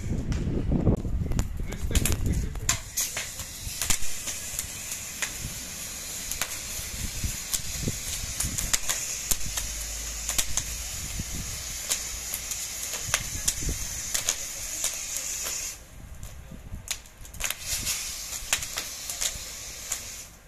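Wooden garden furniture burning, crackling and popping, under a steady hiss of a hose spraying water onto the flames. The hiss breaks off briefly about three-quarters of the way through, then starts again.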